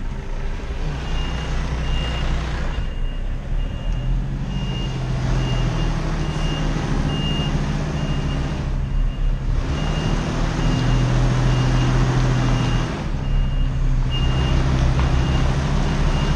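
Truck reversing: its reverse alarm beeps steadily, a little more than once a second, over the diesel engine running at low revs, whose note rises and falls as the driver manoeuvres.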